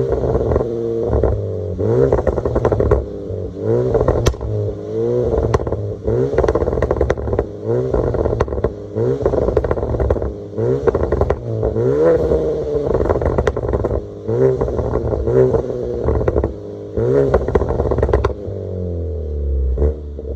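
Opel Astra K 1.4 turbo four-cylinder engine with a stage 2 tune and straight-piped exhaust, revved in quick repeated blips about every second or two, with crackling pops and bangs from the exhaust as the revs drop. Near the end it settles to a steady idle.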